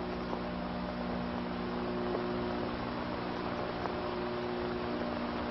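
A steady low hum made of several constant tones, with an even hiss underneath and no distinct events.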